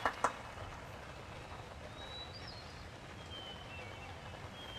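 Quiet outdoor ambience with a few faint, thin, high bird chirps scattered through it. A couple of last hand claps come right at the start.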